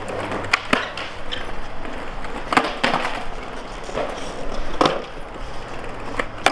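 Skateboard rolling on smooth concrete, with several sharp clacks of the deck and wheels striking the ground and a ledge, the loudest about two and a half, three and five seconds in.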